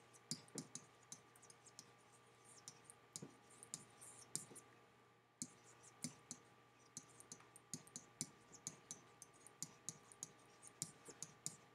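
Faint, irregular clicks and light scratches of a stylus tapping and dragging on a pen tablet as words are handwritten, several a second, with a short pause about five seconds in, over a faint steady hum.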